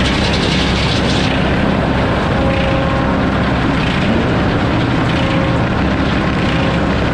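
Circular sawmill running with its 52-tooth F-pattern inserted-tooth blade over a steady low power-unit hum. The high hiss of the blade cutting stops about a second in, leaving the saw spinning free, and a new cut bites in sharply right at the end.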